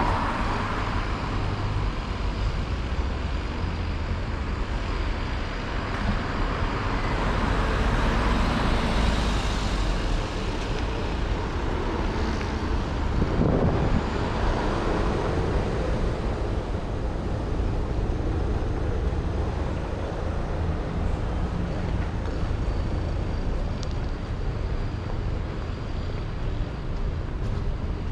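City street traffic: a car drives past close by at the start, and more passing traffic swells and fades midway, over a steady low rumble of road noise.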